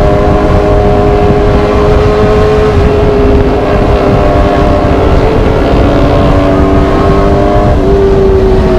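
Motorcycle engine running at a steady cruising speed, its pitch holding nearly constant and rising a little near the end, under heavy wind buffeting on the microphone.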